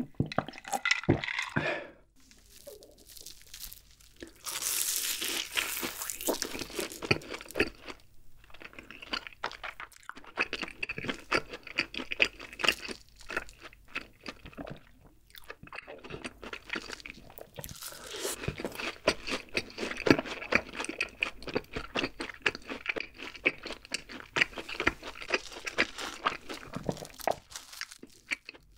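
Close-up chewing and crunching of crisp fried cheese balls, many small crackly crunches in an uneven rhythm. The first second or two carry the loud gulps of an iced drink being swallowed.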